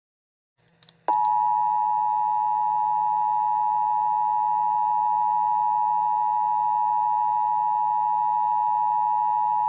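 Emergency Alert System attention signal: two steady tones sounded together just below 1 kHz (853 and 960 Hz). It starts with a click about a second in and holds for nearly nine seconds, announcing a new alert message.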